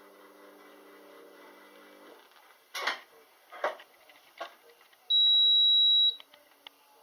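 A low steady hum for about two seconds, then a few sharp knocks, then a loud, single high-pitched electronic beep lasting about a second near the end.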